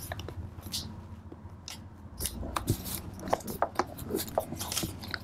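Paper rustling and crinkling in quick, irregular crackles as hands press and smooth glued layers of paper in a journal; busier from about two seconds in.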